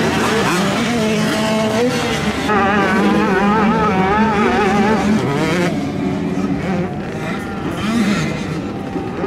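Motocross dirt bike engines revving hard, their pitch rising and falling quickly as the throttle is worked on a climb, with more than one bike running at once.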